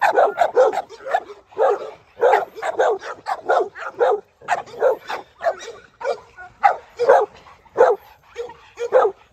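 Pit bull barking rapidly and over and over, about three short barks a second with a few brief pauses, at another dog coming toward it.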